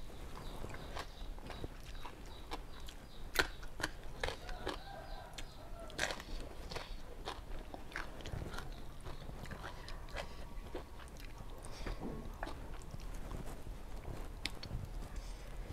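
A person eating close to a clip-on microphone: chewing and biting on papaya salad with grilled chicken and rice noodles, with many short sharp clicks and crunches spread throughout.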